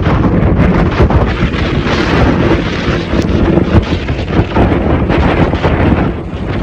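Strong gusting wind buffeting the microphone: a loud, unbroken rush, heaviest in the low end and rising and falling with the gusts.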